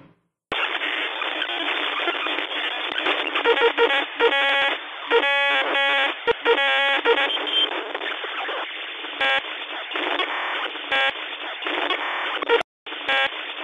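Electronic radio-style static squeezed into a narrow, telephone-like band, starting about half a second in. A few seconds in, pulsing buzzy tones cut through it, and it drops out briefly near the end.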